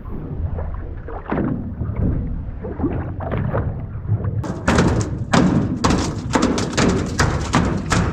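Water sloshing and splashing as a big halibut is drawn up alongside the boat, then, about four and a half seconds in, a fast, irregular run of hard thumps and slaps: the halibut thrashing its tail against the boat's metal chequer-plate deck.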